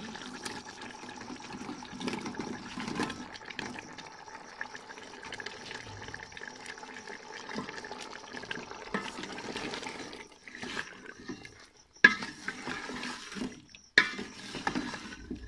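Cut potatoes tumbling into a metal pot of simmering beef gravy, with a steady watery bubbling, then a wooden spoon stirring in the pot. Two sharp knocks come near the end.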